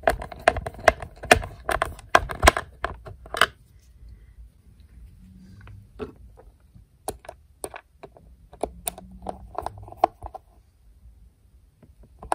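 Screwdriver driving small screws into a vacuum's plastic housing: a quick run of clicks and ticks, a pause, then more scattered clicks.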